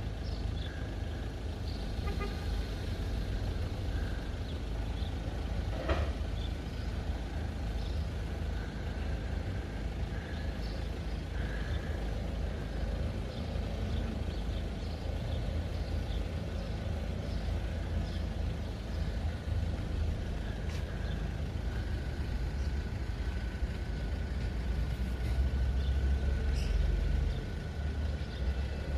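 Road traffic at a level crossing: a steady low engine rumble that swells briefly near the end.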